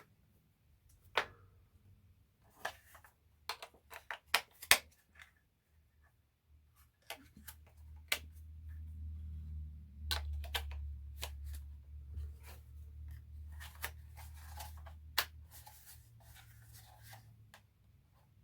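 AA batteries being loaded into a plastic RC radio transmitter's battery compartment and the cover snapped shut: a scattering of sharp plastic clicks and rattles, with a low hum through the middle.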